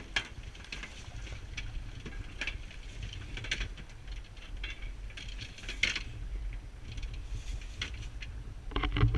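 Steady low rumble of wind and sea noise on the camera microphone aboard a small boat, with scattered irregular sharp clicks and knocks, and a brief louder burst near the end.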